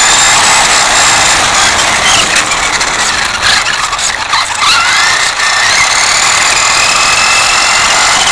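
Radio-controlled car's motor and gears whining loudly, heard from a camera on the car. The whine rises and falls in pitch with its speed, dipping about midway, over a steady rough hiss of its wheels running on concrete sidewalk.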